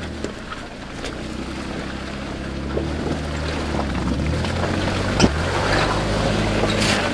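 Four-door Jeep Wrangler's engine running at low revs as it crawls through a deep rut over rocks, its note slowly getting louder. A single sharp knock about five seconds in.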